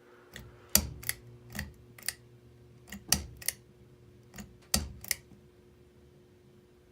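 Ceiling fan pull-chain switch being tugged repeatedly, giving a series of sharp clicks, several in quick pairs. The worn switch is not catching a speed, and the owner says it needs replacing.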